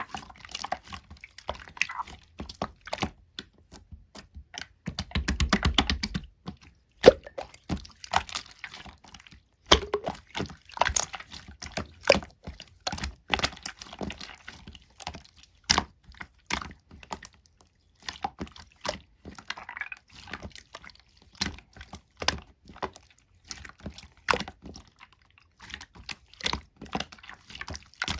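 Semi-translucent blue slime being squished and pressed by hand, giving a steady stream of wet, sticky clicks and little pops. A quick run of clicks comes about five seconds in.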